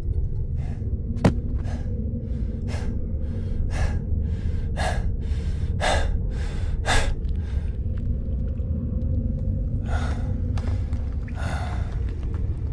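A person panting hard: a run of quick, short breaths over a steady low rumble, easing after about seven seconds to a couple of slower breaths. There is a single sharp click about a second in.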